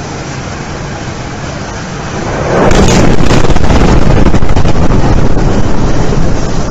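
Chemical plant explosion: after about two seconds of steady wind noise, the blast arrives as a sudden rise to a loud, sustained rumble that is at the top of the recording's level.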